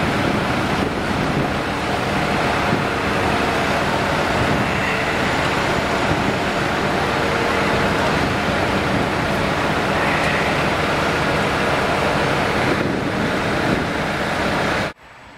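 Steady running of heavy machinery: the diesel engine of the crawler crane working beside the stranded boat, mixed with outdoor wind and surf noise. It cuts off abruptly near the end.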